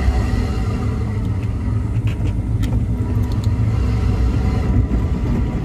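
Car engine and road rumble heard from inside the cabin, a steady low drone as the car climbs a steep road, with a few faint clicks near the middle.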